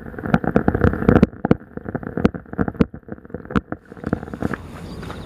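Muffled water sloshing and gurgling, heard through a camera at or just under the water's surface, with many sharp clicks scattered through; loudest and most muffled in the first second or so.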